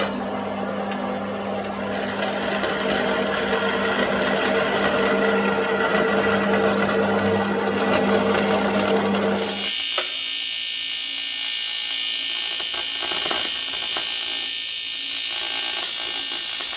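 Small vertical bandsaw running and cutting a metal plate for about the first ten seconds. Then it cuts off suddenly and gives way to the steady high-pitched buzz of aluminium TIG welding as the plate is welded onto a cracked aluminium sump.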